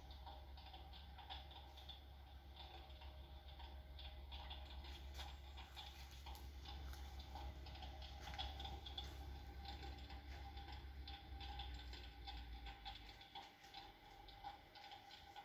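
Electric fireplace hearth with a 3D flame-and-smoke effect running faintly: a low hum that stops near the end, with irregular small clicks throughout.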